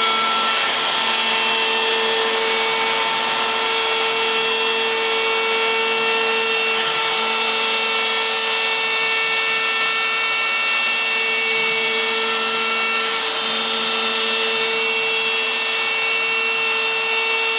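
Ox CNC router running a 3D finish-cut pass: a steady spindle whine and cutting noise, with a few held tones that shift and restart every few seconds as the machine changes moves.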